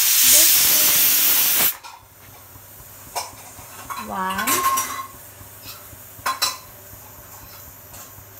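Pressure cooker whistling: a loud blast of escaping steam that cuts off suddenly about a second and a half in. This is the first of the cooker's whistles, as steam pressure builds under the weight. Afterwards a few sharp clinks of steel utensils.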